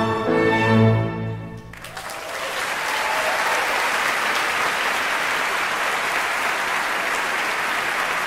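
A symphony orchestra holds a final chord that swells and then cuts off less than two seconds in. Steady audience applause follows and keeps going.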